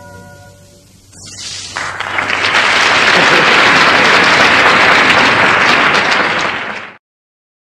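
The music's last held chord fades away, then an audience breaks into applause about a second in, building quickly to loud, steady clapping. The applause is cut off abruptly near the end.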